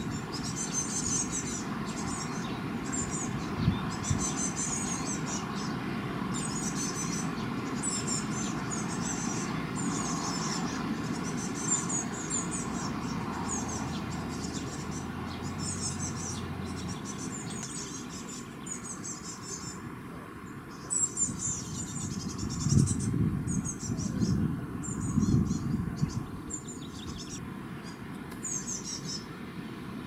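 Small songbirds calling over and over in short, high, thin chirps, about one cluster a second, over a steady low background rumble. The rumble swells louder a few times between about two-thirds and five-sixths of the way through.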